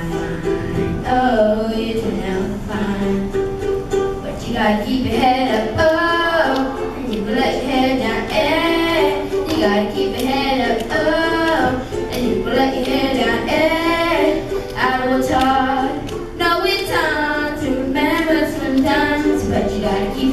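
A boy singing a pop song into a handheld microphone, accompanied by a strummed ukulele, in a continuous sung melody.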